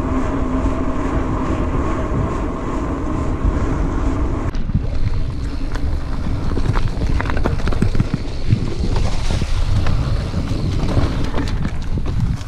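Mountain bike riding fast, with wind rumbling over the action camera's microphone. At first the knobby tyres hum steadily on a paved path. After about four and a half seconds the hum stops abruptly and the bike rattles and knocks over a dirt singletrack.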